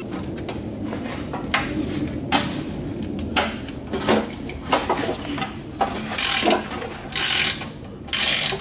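Irregular clicks, clanks and ratcheting of hand tools at work, with three short bursts of hiss in the second half.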